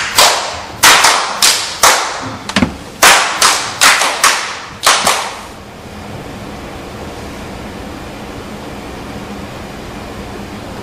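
A quick irregular run of about a dozen sharp percussive strikes, such as slaps or claps, each ringing on briefly in the room. They stop about five seconds in, leaving a steady even hiss.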